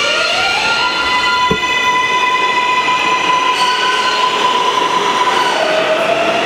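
R143 subway train accelerating out of the station. Its traction motors whine, rising in pitch over the first second and holding steady, then dropping and climbing again near the end, over the rumble of the wheels on the rails. There is one short knock about a second and a half in.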